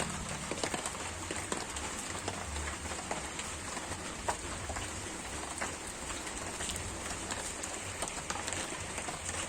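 Steady rain falling, with many separate drops ticking sharply now and then.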